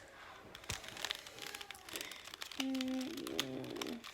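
Rubik's cube being twisted in the hands, with scattered quick clicks. Near the end comes the loudest sound, a short steady note followed by a wavering pitched sound, lasting about a second and a half.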